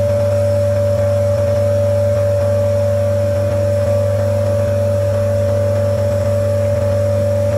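Omron NE-C28 compressor nebulizer running, its piston compressor giving a steady hum with a high tone over it while it drives air through the nebulizer cup.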